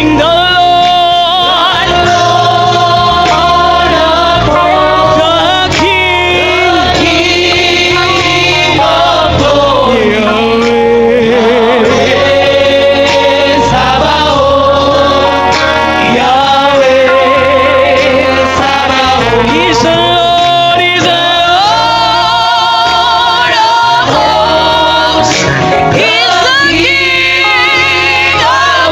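Gospel worship song performed live: singers with a choir sustaining long, wavering sung notes over a steady band accompaniment.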